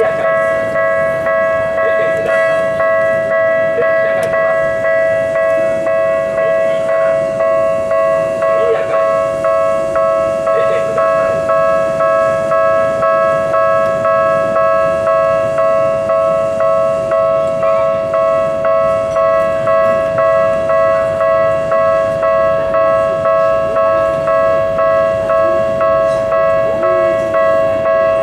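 Japanese railway level-crossing warning bell ringing: an electronic two-tone ding repeating at an even beat without a break, the signal that a train is approaching and the crossing is closed.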